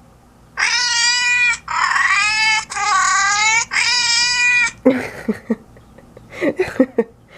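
Cat-translator phone app playing synthesized cat meows through the phone's speaker: four drawn-out meows in a row, each starting and stopping abruptly, followed by a few short, quieter sounds.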